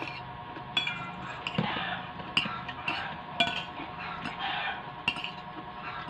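Metal fork and spoon clinking and scraping against a bowl while food is scooped up. Several sharp clinks come irregularly, the loudest about three and a half seconds in.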